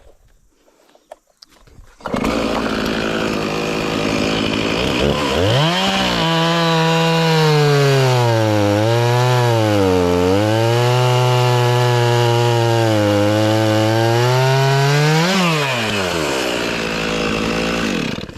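Chainsaw starts running suddenly about two seconds in, then is throttled up and cuts into wood, its pitch sagging and recovering as the chain takes the load, before dropping back toward idle near the end.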